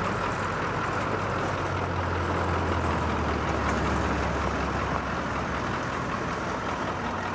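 Tow truck engine running steadily, its low hum growing stronger from about two seconds in and easing after about five seconds.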